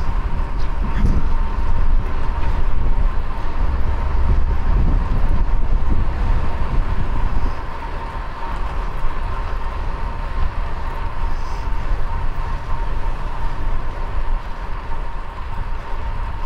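Wind buffeting the microphone and road rumble while riding a fixed-gear bicycle through traffic, with a thin steady whine running through it. The low rumble eases about seven and a half seconds in.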